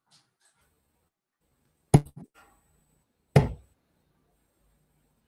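Two steel-tip darts thudding into a bristle dartboard, one after the other about a second and a half apart.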